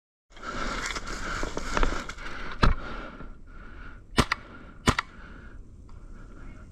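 Airsoft rifle firing three single shots, each a sharp crack, the last two close together, over rustling handling noise.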